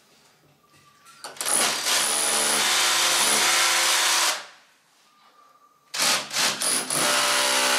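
Cordless drill boring fixing holes into a wall for radiator bracket screws. It runs in two bursts: a steady run of about three seconds starting a second and a half in, then after a pause a second hole started with a couple of short stutters before the drill runs on.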